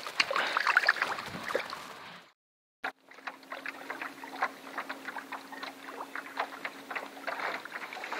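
Water splashing as a largemouth bass is let go over the side of a small boat. The sound cuts out for about half a second a little over two seconds in. It then goes on as light ticking and patter of water around the boat, with a faint steady hum that stops near the end.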